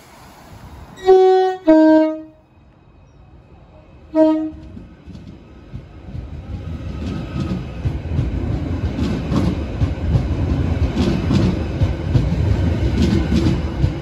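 Merseyrail Class 777 electric train sounding its two-tone horn, a higher note then a lower one, followed by a short low toot a couple of seconds later. It then pulls away and passes close by, its running noise building into a steady rumble with clicks of wheels over rail joints.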